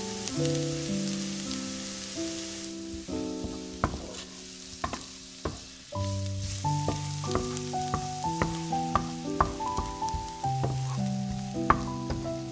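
Sliced red onion sizzling in oil in a nonstick frying pan, with a wooden spoon clicking and scraping against the pan as it is stirred, more often in the second half. Soft background music with slow held notes plays underneath.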